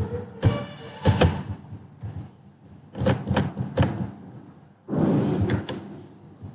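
Computer keyboard and mouse clicks as the presenter switches between windows: scattered sharp clicks, a quick run of them about three seconds in, and a short rustle about five seconds in.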